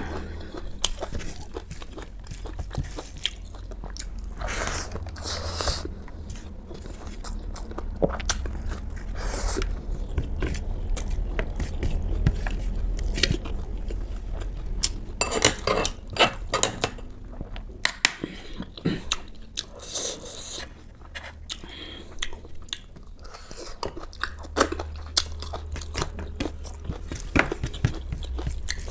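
Close-miked eating: chewing and crunching of food, with many sharp clicks scattered through and thickest around the middle and near the end.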